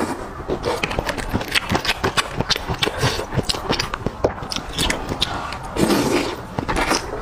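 Close-miked slurping and chewing of noodles: a rapid run of wet mouth clicks and smacks, with a long slurp about six seconds in.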